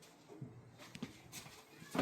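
Faint, short animal calls, a couple of them within a couple of seconds.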